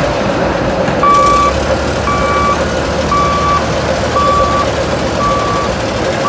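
CAT 966C wheel loader's diesel engine running, with its backup alarm beeping about once a second from about a second in: the loader is in reverse.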